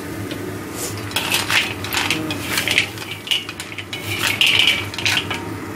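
Spatula scraping and knocking in a wok as a stir-fry of sea snails in their shells is tossed, the shells clattering, in irregular strokes.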